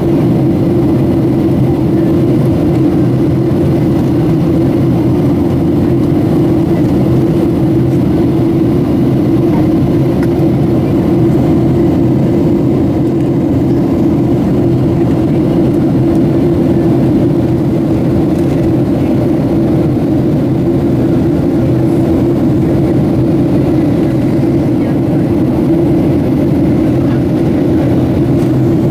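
Steady cabin noise inside a Boeing 737-700 in descent: the drone of its CFM56 turbofan engines and airflow over the fuselage, with a strong low hum and no change in level.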